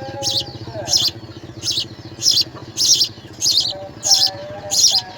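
House sparrows chirping: short high chirps repeating about every two-thirds of a second, over a steady low motor-like hum.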